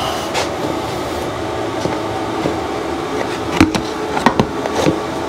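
Plastic rear fender clicking and knocking against a steel motorcycle subframe as it is pushed into place for a test fit. There are a few sharp knocks between about three and a half and five seconds in, over a steady mechanical hum.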